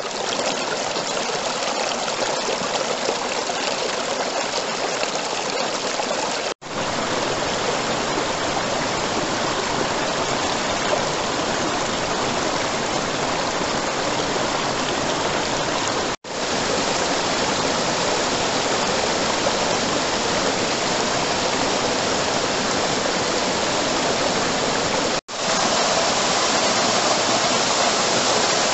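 Mountain stream rushing and splashing over mossy rocks in a steady rush of water that cuts out for an instant three times. Near the end a small waterfall pours over rock, a little louder.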